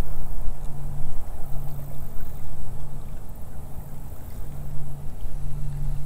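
Wind buffeting the microphone: a low rumble that swells and dips in gusts.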